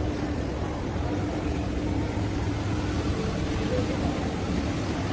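Steady background hum of a large indoor shopping mall: a low rumble with a faint wash of distant voices.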